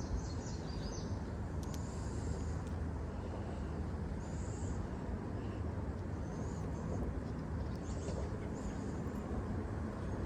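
Riverbank ambience: a steady low rumble of wind or distant traffic, with short high bird chirps every second or two.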